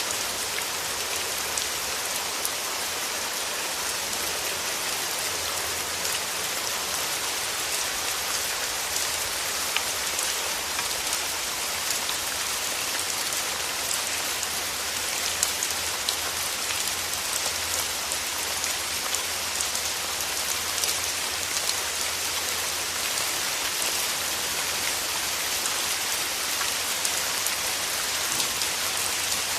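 Steady rain falling, an even hiss with many individual drops pattering and ticking on surfaces.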